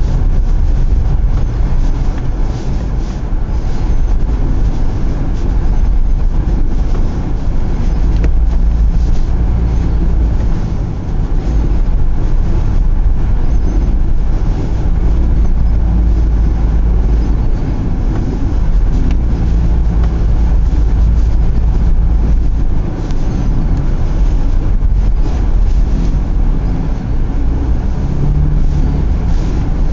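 Vehicle driving, heard from inside the cabin: a loud, steady low rumble of engine and road noise that rises and dips slightly in level.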